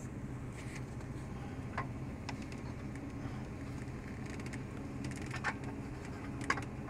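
Steady low hum with a few sharp clicks and knocks of metal parts being handled in an engine bay, the loudest near the end.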